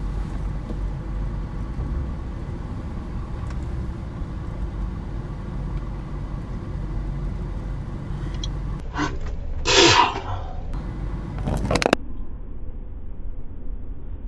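Steady low rumble of a car idling, heard from inside the cabin. About ten seconds in comes a short, loud burst of noise, with a few weaker knocks just before and after it.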